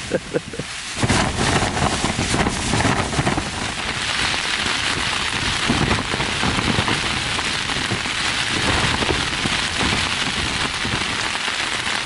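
Wild Country Cloud Peak 2 tent battered by strong wind, heard from inside: a dense, steady rush of fabric buffeting, with wind rumble on the microphone. It swells about a second in and stays loud.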